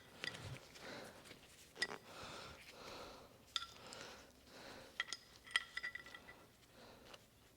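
Small steel lathe parts clinking and tapping together as a part is fitted back into a mini metal lathe: scattered light knocks, a few of them ringing briefly, the sharpest about three and a half, five and five and a half seconds in.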